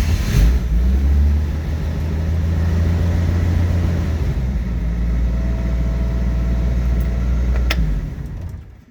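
1967 Chevy van engine catching and idling steadily on its newly fitted ignition lock cylinder, then switched off: a sharp click a little before the end, and the engine runs down and stops.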